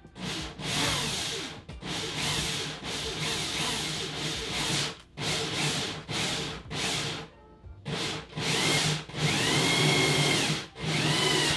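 Power drill driving a bi-metal hole saw through a PVC enclosure panel, the saw teeth grinding and rubbing through the plastic. The drill runs in repeated spurts of one to two seconds with brief stops, and its motor whine rises and falls near the end.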